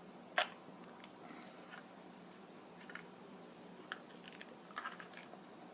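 A rubber balloon filled with cornstarch and water being pulled off the neck of a plastic bottle: one sharp click about half a second in, then a string of faint clicks and squishes of rubber and wet cornstarch.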